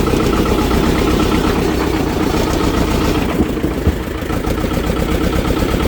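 Engine of an earth-moving machine running steadily, holding an even pitch throughout.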